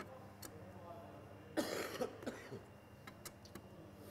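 A single loud cough about a second and a half in, followed by a few light metallic clicks as the carburettor is set onto its intake manifold studs.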